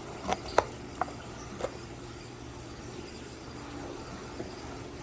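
A few light clicks and taps from shipping containers or bags being handled, in the first second and a half, then only a steady low background hum.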